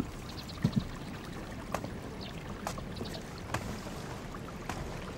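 Slow, soft footsteps on a wooden floor, about one step a second, over a steady background hiss.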